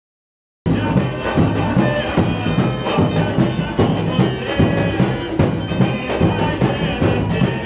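Samba school bateria (drum section) playing a dense, driving samba rhythm, cutting in abruptly about half a second in after a brief dropout.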